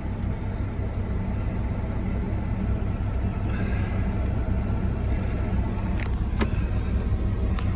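Kenworth T680 semi truck's diesel engine idling steadily, heard from inside the cab as a low, even rumble. A couple of sharp clicks come about six seconds in.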